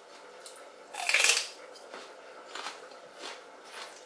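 A raw celery stick bitten with one loud, crisp crunch about a second in, then chewed with a run of softer crunches.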